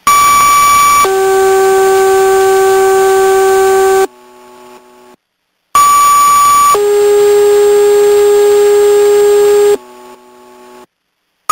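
Two-tone sequential fire-dispatch paging tones over the radio. A higher tone is held about a second, then a lower, buzzy tone for about three seconds, each pair followed by a brief quieter tone. The sequence is sent twice, and a third set begins at the very end.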